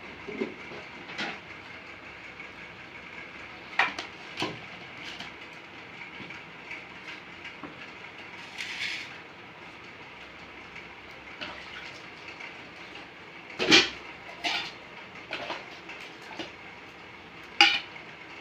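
Metal plates and cups being handled and set down on a hard tiled floor: scattered clinks and knocks, the loudest a little past the middle and another near the end, over a steady hiss.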